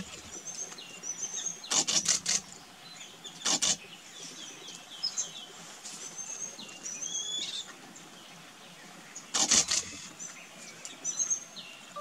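Small birds chirping, with many short high-pitched calls. A few sharp knocks come through it, a short cluster about two seconds in, another near three and a half seconds and one near ten seconds, as a yellownape woodpecker pecks into a hole in a dead trunk.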